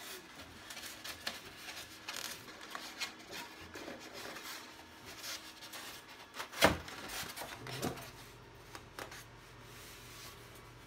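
Rigid Styrodur foam sheets rubbing and scraping against foam and the baseboard as they are handled, fitted and pressed into place, with one sharp knock about two-thirds of the way in. A faint steady hum from two 3D printers runs underneath.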